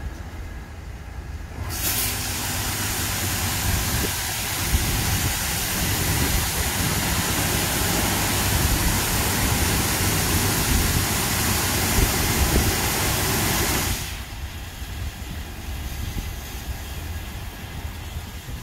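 Automatic gantry car wash running over a parked car: a low machine rumble throughout, with a loud steady hiss of spraying water that starts about two seconds in and cuts off suddenly about fourteen seconds in.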